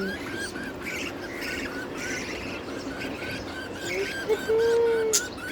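Caged budgerigars chirping and chattering: a rapid, even run of short chirps, about three or four a second, with scattered higher chatter over it. A louder held tone comes about four and a half seconds in, followed by a sharp click.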